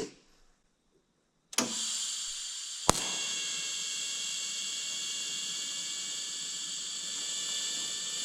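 TIG welding arc at about 45 amps on copper tube, struck with high-frequency start: a sharp click about a second and a half in, another click a moment later, then a steady hiss with high whining tones. At this setting the arc is too cold to pull a weld puddle on the copper.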